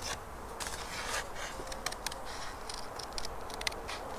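Thin card being cut by hand: scattered small clicks, snips and short scrapes.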